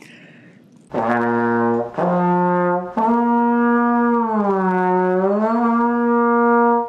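Tenor trombone played: three rising notes, then the top note glides smoothly down and back up with the slide and is held. The slide has just been treated with slide compound.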